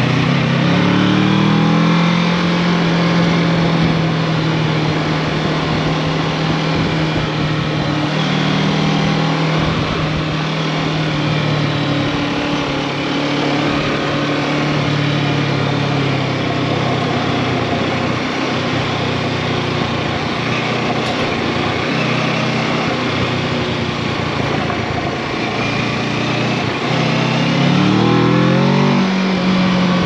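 Kawasaki Versys 650's parallel-twin engine running under load as the bike rides along a gravel road, over steady wind and tyre noise. The revs climb at the start and again near the end, then settle.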